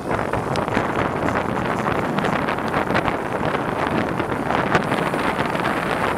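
Wind rushing over the microphone of a camera riding on a moving folding bicycle: a steady, loud noise with faint clicks and rattles scattered through it.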